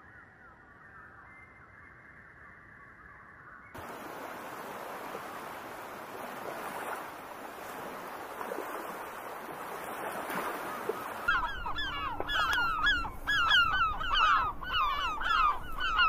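Faint, muffled bird calls, then from about four seconds a steady hiss of outdoor background noise. From about eleven seconds gulls call loudly and repeatedly, several curved, pitch-bending cries a second.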